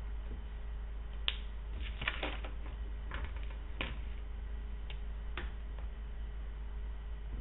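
Dry-erase marker caps clicked off and on and markers handled at a whiteboard: a scattering of sharp clicks over about four seconds, the sharpest about a second in, over a steady low hum.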